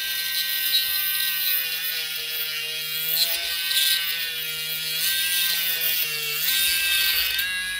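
Small rotary tool running with a steady whine as its fine bit drills through a pearl clamped in a vise. The pitch dips briefly a few times as the bit bites.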